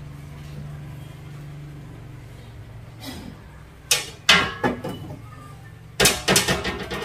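Trophies being handled and set down on the glass shelves of a wooden display cabinet: two clusters of sharp knocks and clinks, about four seconds in and again about six seconds in.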